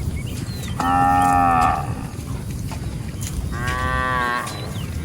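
Cattle mooing twice, each call about a second long and the second coming about three seconds after the first.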